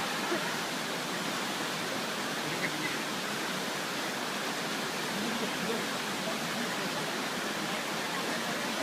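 Steady rush of flowing river water, an even hiss with no breaks, with faint voices in the background.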